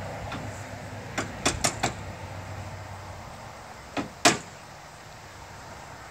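Sharp clicks and knocks from hand tools working on the barn door's hardware: four in quick succession about a second in, then two more about four seconds in, the last the loudest.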